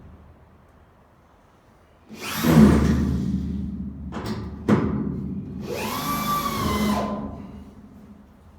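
Power drill running in two bursts of about two seconds each, its motor pitch rising and falling, with two sharp clicks in between.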